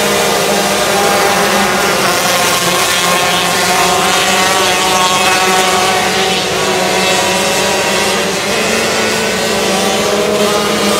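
Several 125cc micro sprint car engines running together: overlapping high-pitched engine notes that waver up and down in pitch.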